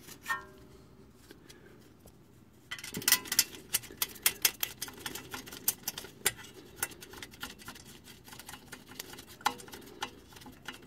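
Irregular sharp clicks and light rattles of hand work at the front wheel hub as the ABS wheel speed sensor is refitted. It starts mostly quiet, and the clicking begins about three seconds in and runs in quick, uneven runs.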